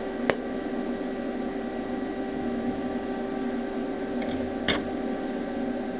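Steady machine hum with several fixed tones, with a sharp click just after the start and another about four and a half seconds in.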